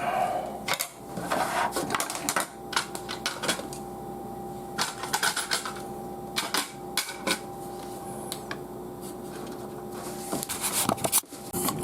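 Irregular small clicks and taps of hands handling an M.2 NVMe SSD on a computer motherboard while fitting it, with a denser cluster of clicks near the end. A faint steady hum runs underneath.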